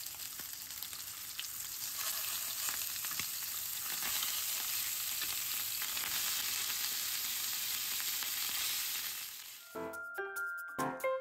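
Slices of pork belly sizzling steadily in hot fat in a frying pan. About ten seconds in the sizzle drops away and light background music with plucked notes begins.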